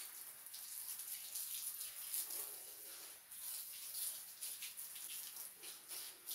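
Water from a garden hose spraying and spattering irregularly onto a wire-mesh rack and the concrete floor beneath it, rinsing dye off the rack.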